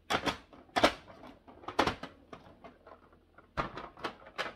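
Hard plastic clacks of small ink pads being handled and set down on a table. There are about six sharp knocks at uneven intervals, with three in quick succession near the end.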